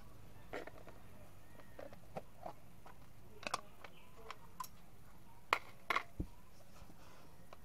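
Scattered light clicks and taps of small objects being handled on a hard floor, with a cluster of sharper clicks about five and a half to six seconds in.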